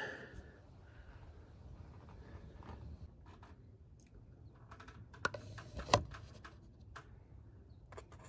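A few sharp plastic clicks and knocks, the loudest about six seconds in, as the oil filler cap is set aside and a plastic funnel is fitted into the oil filler opening.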